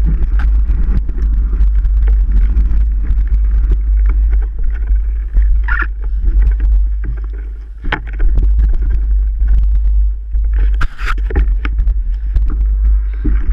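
Wind buffeting the microphone while riding a mountain bike, with a steady low rumble, plus frequent knocks and rattles of the bike over rough ground and a couple of brief squeaks.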